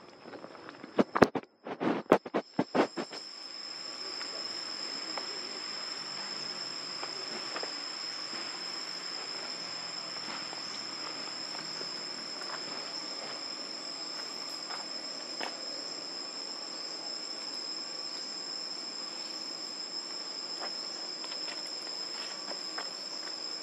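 Insects droning steadily: a continuous high-pitched buzz with a second, higher steady tone above it. A cluster of loud knocks comes about one to three seconds in.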